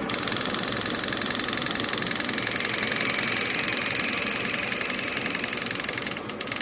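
Milling machine spindle driving an offset boring head through a bore in an aluminium arm: a loud, steady cutting noise with a fast, even rhythm. Near the end it drops suddenly to the quieter sound of the spindle running without cutting.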